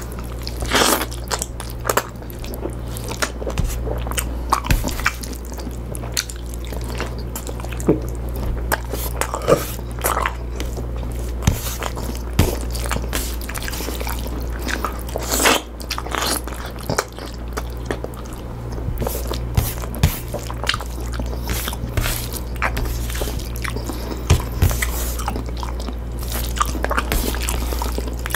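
A person chewing and biting food close to the microphone, with irregular wet mouth clicks and smacks. The food is pinakbet, a Filipino vegetable stew. A steady low hum runs underneath.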